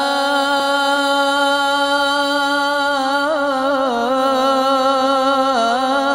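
A solo male voice chanting an Islamic ibtihal, a devotional supplication sung without instruments. It holds one long drawn-out note that breaks into ornamental turns about three, four and five and a half seconds in.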